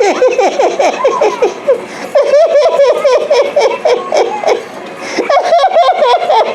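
High-pitched laughter in three long bouts of quick repeated pulses, with short pauses between them.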